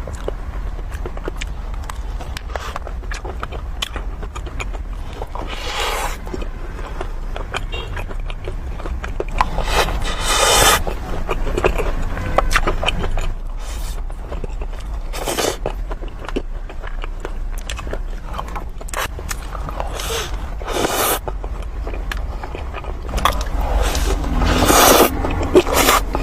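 Close-miked eating sounds of sweets being bitten and chewed: a run of small wet clicks and smacks, with louder crunchy bursts every few seconds. A steady low hum sits underneath.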